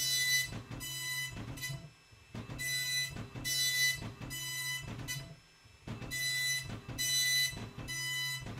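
Epson color dot-matrix printer printing: the print head buzzes in rapid passes back and forth across the paper, with a short pause about every three seconds as the paper advances to the next line.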